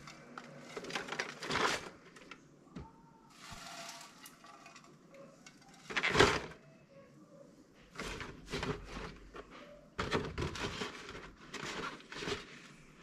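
Arugula leaves rustling as handfuls are laid into a clear plastic salad ring on a plate, in several short bursts of rustling and handling noise, the loudest about six seconds in.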